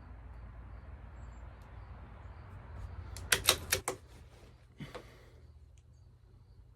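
A rifle bolt being cycled: a quick run of four or five sharp metallic clicks, then one more click about a second later, over a steady low rumble.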